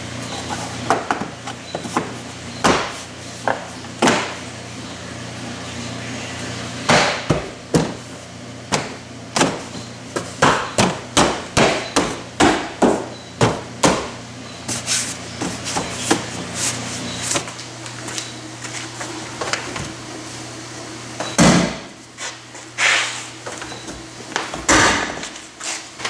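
A run of sharp knocks and thumps as the Honda Odyssey's plastic rear-quarter interior trim panel is struck by hand to snap its clips home. In the middle the knocks come quickly, about two a second, and a heavier thump falls about three-quarters of the way through.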